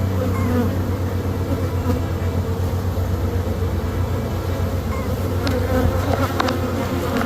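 Honey bees buzzing in a steady drone around an opened hive. A few short clicks or knocks come in the second half.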